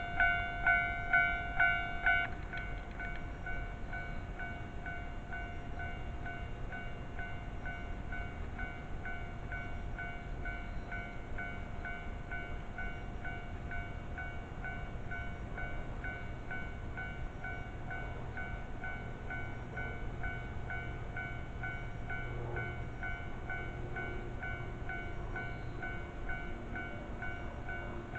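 Japanese railway level-crossing warning bell ringing at about two strokes a second. It drops to a softer level about 2 s in and keeps ringing over a low rumble.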